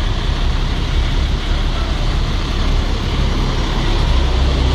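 Street traffic noise with a steady low engine rumble, which grows louder about four seconds in as a city bus passes close by.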